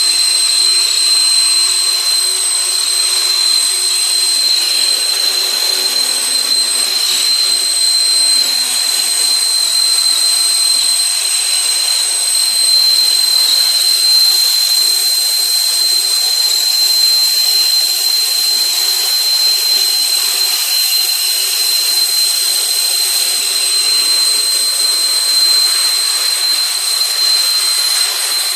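Metal-cutting machine running with a steady, high-pitched whine over a hiss that holds level throughout.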